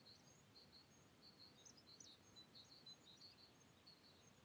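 Near silence outdoors, with faint small birds chirping: many short, high chirps scattered irregularly over a soft background hiss.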